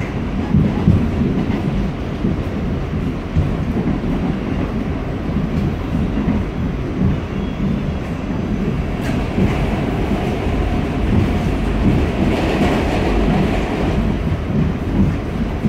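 R46 subway car running along the track: a steady low rumble of wheels on rail, with some clickety-clack. A sharp click comes about nine seconds in, followed by a hissing noise higher up that swells for a few seconds.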